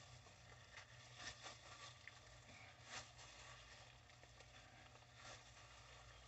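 Near silence with faint handling sounds: gloved hands pulling apart raw pig intestines give a few soft wet ticks and plastic rustles over a low steady hum.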